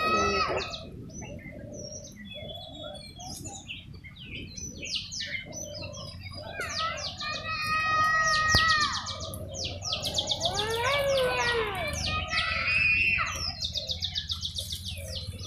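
Wild birds chirping and calling in the trees: scattered short high chirps throughout, with fast trills twice in the second half.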